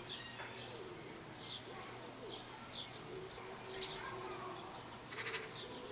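Faint garden birdsong: small birds giving short, high chirps about every half second, over quiet outdoor background noise.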